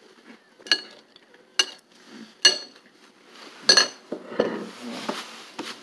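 Metal spoon clinking against a bowl four times while scooping food, each clink ringing briefly. Softer rustling follows in the last couple of seconds.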